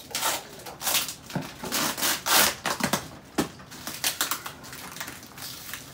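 Cardboard boxes being opened: packing tape pulled and torn from a box seam, and cardboard flaps and inserts scraped and rustled. The sounds come in irregular bursts of ripping and crinkling, loudest in the first three seconds.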